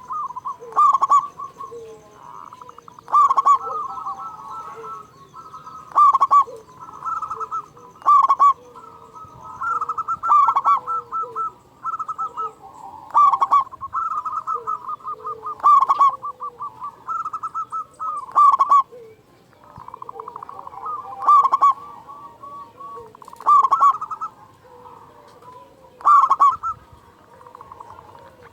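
Zebra doves (perkutut) cooing: loud phrases of rapid stuttering coos, repeated about every two and a half seconds, with softer lower coos between them.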